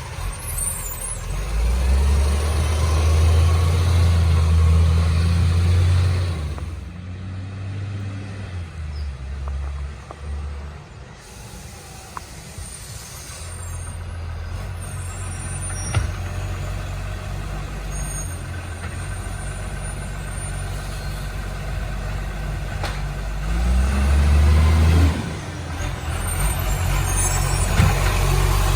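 Diesel garbage truck with an exhaust leak running: the engine revs up and holds for several seconds, drops back to a lower steady run, then revs up briefly again and cuts back suddenly.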